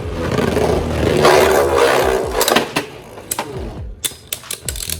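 Beyblade Burst spinning tops in a plastic stadium. There is a dense whirring rush for the first couple of seconds, then a run of sharp clacks as the tops hit each other and the stadium walls.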